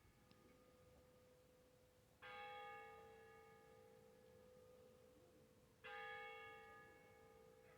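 A church bell tolling slowly and faintly, struck twice about three and a half seconds apart, each stroke ringing on with a lingering hum between strokes.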